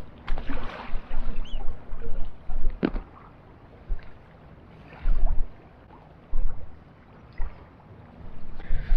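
Wind gusting over the microphone in irregular low rumbling bursts aboard a small boat, with a few sharp knocks and clicks in between.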